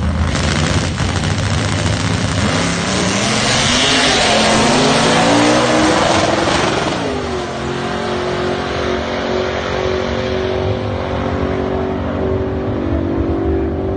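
Two drag-racing cars launching off the line and accelerating hard down the strip, the engines' pitch climbing and stepping through gear changes, loudest about four to six seconds in. Afterwards the engines hold at high revs and fade slightly as the cars pull away.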